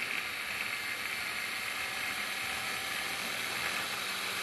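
SilverCrest 600 W hand blender running on its mini-chopper attachment, mincing chunks of onion and carrot: a steady high motor whir.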